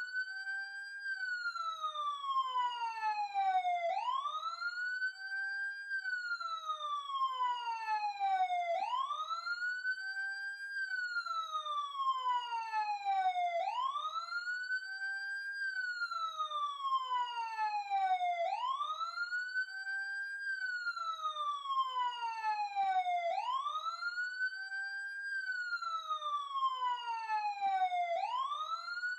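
Police car siren in a steady wail, each cycle lasting about five seconds. The pitch rises quickly in about a second, then falls slowly over three to four seconds; about six cycles pass.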